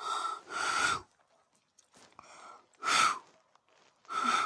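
A person trying to whistle through their fingers: four short, hissing blasts of air with only a faint thin whistle in them. The whistle does not properly sound, a failed finger whistle.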